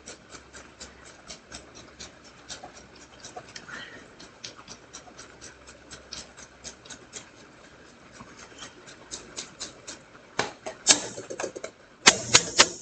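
Parmesan cheese grated by hand on a grater: quick, even rasping strokes, about four a second. Near the end come a few louder clatters.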